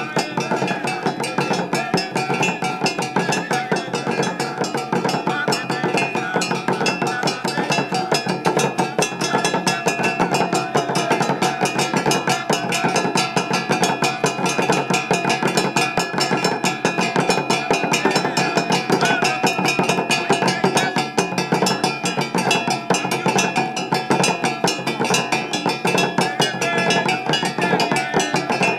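Dogon mask-dance drumming: drums struck in a fast, dense, unbroken rhythm.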